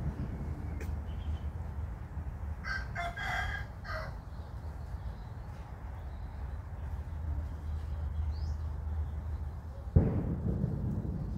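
A rooster crows once, a call of about a second and a half starting between two and three seconds in. Near the end comes a sudden low thump, over a steady low hum.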